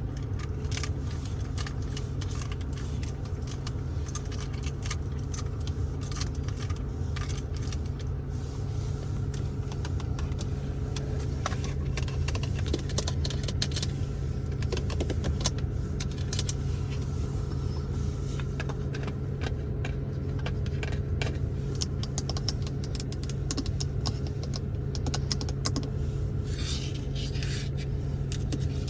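Rapid, irregular tapping and clicking on the interior surfaces of a Ford Focus, over a steady low hum.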